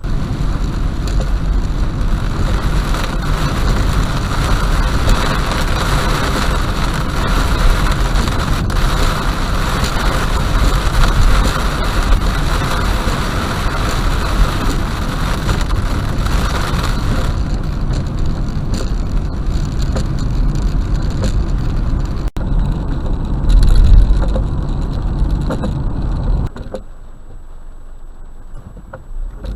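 A car driving in rain, heard from inside through a dashcam: a steady wash of rain and wet-road noise. The higher hiss thins a little past halfway, and the whole sound drops off suddenly near the end.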